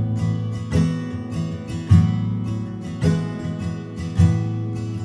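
Background music on acoustic guitar, with a plucked chord about once a second.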